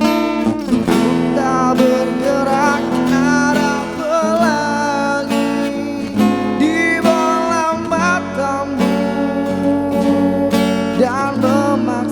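Strummed acoustic guitar accompanying a sung melody in a pop ballad, with the voice holding wavering, vibrato notes over the chords.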